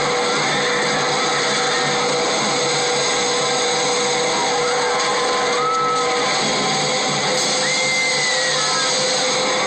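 A steady, dense roar of rushing, crashing water from a film's tsunami sound effects, with music underneath and two brief high cries about six and eight seconds in.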